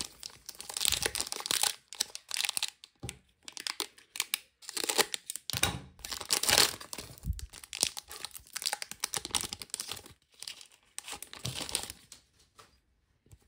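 Foil wrapper of a 2024 Footy Stars trading card pack being torn open and crinkled by hand, in irregular bursts of crackling and tearing that die away near the end.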